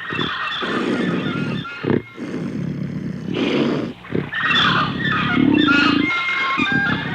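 Big-cat (panther) sound effect: low growling, broken by short pauses, with higher-pitched animal calls over it.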